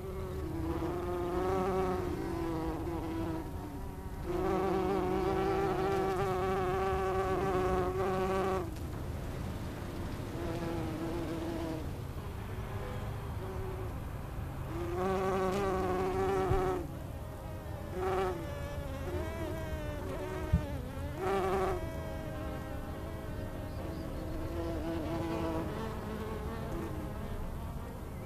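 Flying insects buzzing: a wavering wing buzz that swells and fades several times, with one sharp click about two-thirds of the way through.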